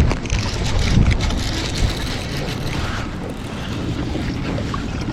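Strong wind buffeting an action-camera microphone, a low rumbling rush with scattered small knocks, over water around a kayak.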